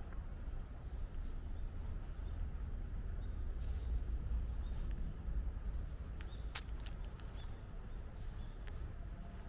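Outdoor park ambience: a steady low rumble with faint, short high chirps scattered through, and a few sharp clicks about two-thirds of the way in.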